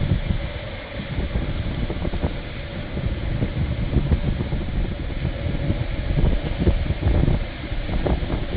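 Wind buffeting the phone's microphone in irregular gusts, over the steady rush of breaking surf.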